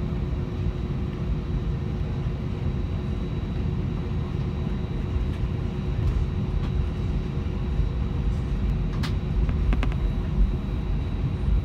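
Steady low rumble of an Airbus A320's jet engines at taxi power, heard inside the cabin by the wing, with a constant hum running through it. A few light clicks come about nine to ten seconds in.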